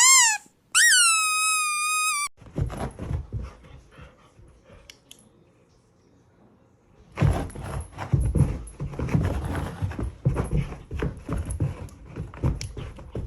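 Two squeaks from a rubber squeaky toy in the first two seconds, each dropping in pitch and then holding, the second longer. They are followed by a dog's low thumps and rustling as it moves about, picking up again from about seven seconds in.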